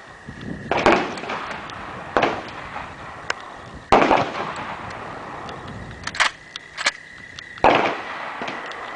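Shotgun fire from a Winchester Model 1893 pump-action shotgun: three shots roughly three to four seconds apart, each with a short echo. Sharp metallic clacks between the shots are typical of the pump action being worked.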